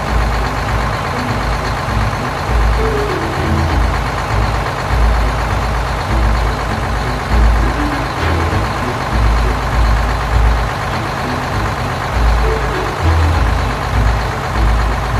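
Truck engine running steadily as it drives, a dense low rumble that swells and eases every second or so.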